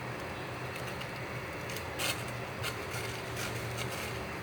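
A pot of chicken broth boiling on the stove: a steady hiss over a low hum. Four light clicks of kitchen utensils come at about two, three and four seconds in, the first the loudest.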